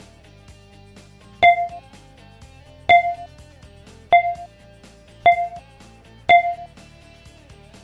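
Five short electronic notification pings, all at the same pitch and spaced about a second apart, over soft background music. They are app alert sounds marking each new task as it arrives on a phone's dashboard.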